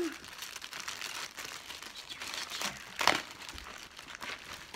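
Plastic bag crinkling as hands dig into it and unwrap an item, with one louder crackle about three seconds in.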